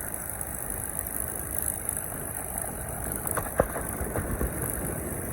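Aircraft engines running steadily, heard as an even rumbling noise, with a single sharp click about three and a half seconds in.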